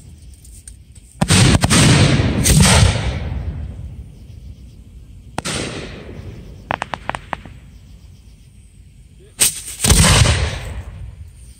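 Aerial fireworks shells bursting overhead: several booming reports that trail off in a rumble, a sharp single crack in the middle, and a quick string of about five crackling pops just after it.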